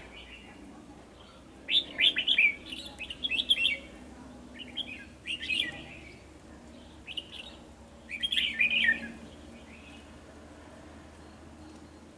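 Red-whiskered bulbuls singing in short bursts of quick, chirpy warbled phrases, four bursts a second or two apart, the longest about two seconds. It is the challenge song of male bulbuls squaring off against a caged decoy bulbul.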